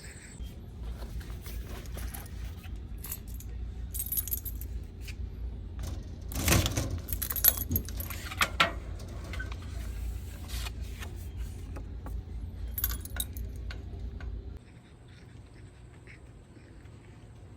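Keys jangling and clicking in several short bursts, heaviest a few seconds in and again near the end, over a steady low rumble that stops suddenly about fourteen seconds in.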